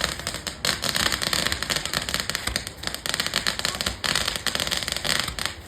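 Fireworks crackling in a dense, rapid barrage of sharp bangs, many a second, cutting off near the end.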